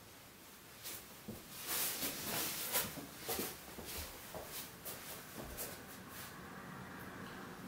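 Feet scuffing and shuffling on foam floor mats as a person walks and twists, with soft clicks and hissing scrapes that are loudest in the first half.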